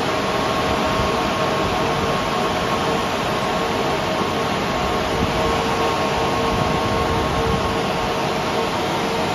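Cooling fans of a bench full of running variable-frequency drives whirring steadily, with a few steady tones held in the noise.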